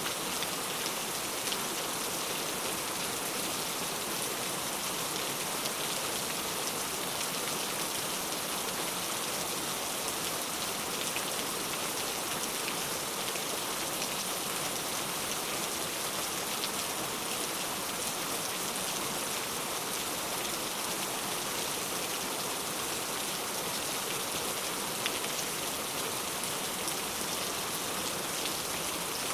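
Heavy rain falling steadily, a dense even hiss with many individual drops pattering on surfaces.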